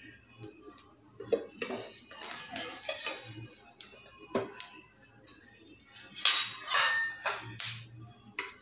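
Stainless steel bowl used as a lid on a frying pan clinking and scraping against the pan as it is handled and lifted off, a run of metallic knocks and clatters that is loudest near the end.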